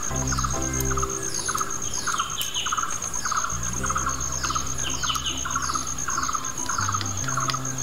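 Birds chirping over and over in an even rhythm, with falling whistled sweeps, above a steady, high, pulsing trill. Soft low sustained music notes run underneath, shifting pitch a few times.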